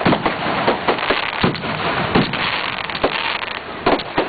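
Fireworks going off: a rapid, irregular run of sharp bangs and crackles, several a second, over a continuous rumbling noise.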